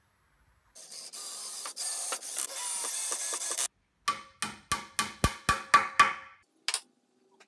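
A steady rasping mechanical noise for about three seconds. Then a claw hammer taps a wooden dowel into a hole in a hardwood stretcher: about eight quick, ringing taps at roughly four a second, and one more tap a moment later.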